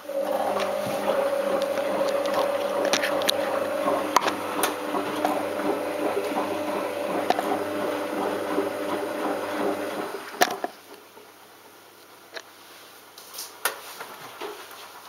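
Balay T-8295 front-loading washing machine during its rinse stage: a steady hum with rushing, gurgling water runs for about ten seconds, then stops, leaving the machine much quieter.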